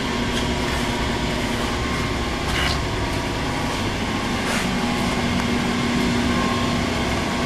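Steady drone of building air-conditioning machinery running, with a low hum tone that grows stronger about halfway through.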